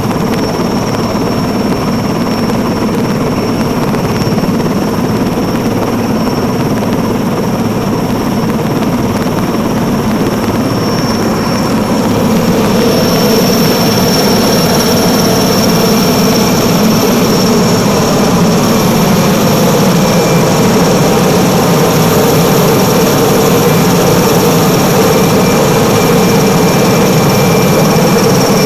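Helicopter running steadily, a continuous engine and rotor noise with a high, steady turbine whine; it gets louder about twelve seconds in and holds.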